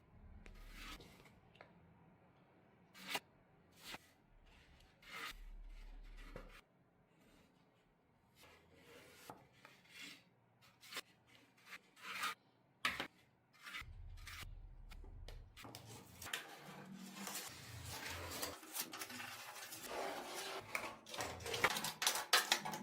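Polyester body filler being spread and scraped over a steel scooter frame: scattered short scrapes and clicks, then denser, steadier scraping over the last several seconds.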